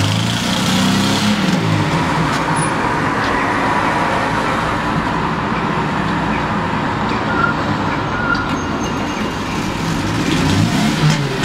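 Road traffic noise: a steady rush of passing vehicles, with an engine heard more plainly near the start and again near the end.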